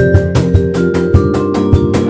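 Music with a steady drum beat over held pitched notes.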